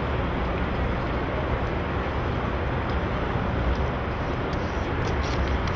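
Steady rushing background noise with a low rumble.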